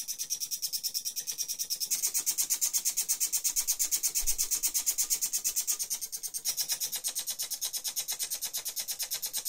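Homemade split-flap display modules flipping their flaps in a fast, even clatter of about eight clicks a second. The sound of the clatter changes about two seconds in and again around six and a half seconds, as the flaps roll through their characters.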